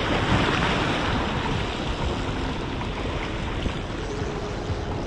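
Sea surf washing and foaming over the jetty's rocks in a steady rush, with wind buffeting the microphone.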